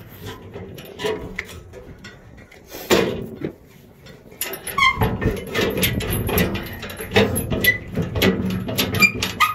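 Steel blade-access door of a Brush Bandit 150XP disc chipper being swung shut and its big hinge pin worked back into place by hand, giving irregular metal clanks and knocks, one louder knock about three seconds in, and a few short squeaks.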